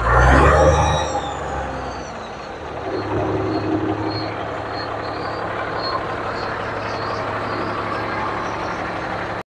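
Caterpillar 12H motor grader's diesel engine idling steadily, louder for the first second or so, then settling to an even low hum.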